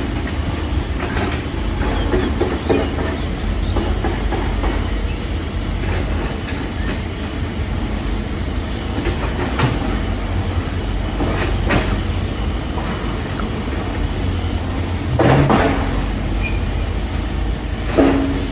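Construction-site ambience: a steady low rumble of heavy machinery with scattered metallic knocks and clanks, and a louder clatter about fifteen seconds in and again near the end.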